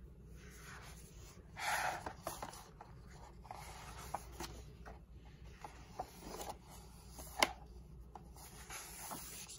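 Paper pages of a picture book being turned by hand: soft rustling and sliding, with a louder rustle about two seconds in and scattered small ticks, one sharper tick near the end.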